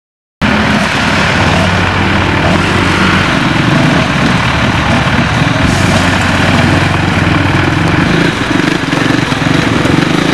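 Motor-vehicle engines running steadily and loud, cutting in abruptly about half a second in.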